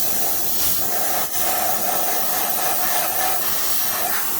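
Compressed-air blow gun hissing steadily as it blows metal drill shavings out of a drilled-out broken bolt hole. The hiss dips briefly about a second in.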